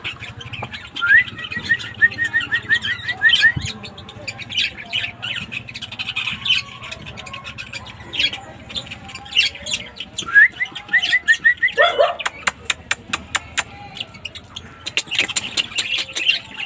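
Pet lovebirds chirping and squawking continuously, with two runs of quick repeated rising chirps and a rapid series of sharp clicks about twelve seconds in.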